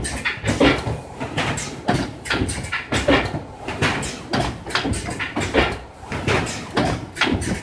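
Zhengrun FB650 automatic book-style box assembling machine running, a busy irregular string of mechanical clacks and knocks, several a second, as its carriage slides and its placing head works.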